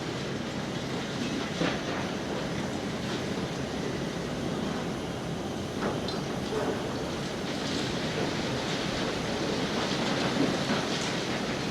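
Demolition excavator chopping away at the building: a steady clattering rumble of breaking masonry and falling debris, with irregular sharp knocks.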